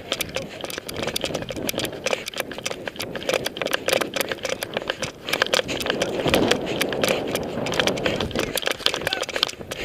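Handling noise from a body-worn ContourHD action camera as its wearer runs and turns: a dense, irregular rattle of taps and knocks on the camera and its mount, over a steady rushing noise.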